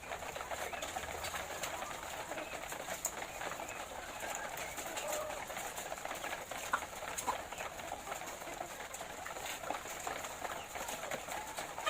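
A large flock of laying hens clucking and murmuring together in a steady, dense chorus, with scattered small clicks.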